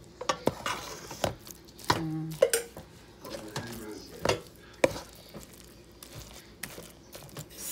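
Stirring thick sticky rice for biko in a stainless steel pot: irregular scrapes and knocks of the utensil against the pot's side and bottom.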